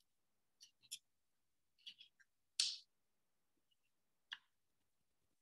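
Faint, short rustles and taps of construction paper and cardboard tubes being handled while a string is tied on, about five separate sounds in near silence, the loudest a little over two and a half seconds in.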